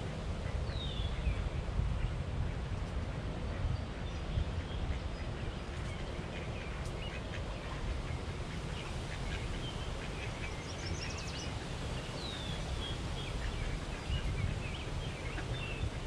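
Ducks quacking and small birds calling, including two short falling whistles and a brief trill, over a steady low rumble.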